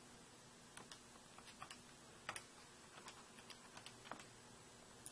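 Faint, uneven clicks of calculator keys being pressed, a dozen or more in quick succession as a multiplication is keyed in.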